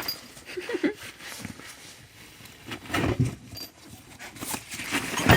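Hand tools knocking and clinking against each other as they are packed and shifted around in a tool bag, in scattered short knocks.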